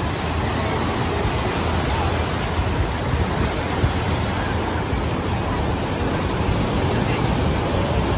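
Ocean surf breaking and washing up the beach: a steady, even hiss of waves with a low rumble underneath.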